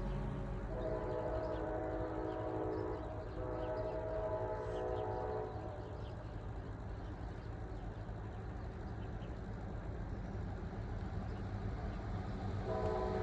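Diesel locomotive's multi-chime horn sounding two blasts, one right after the other, over the steady rumble of a passing train; a third blast starts near the end.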